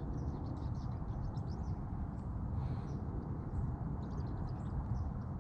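Outdoor ambience: a steady low rumble with faint, scattered high chirps, like small birds calling.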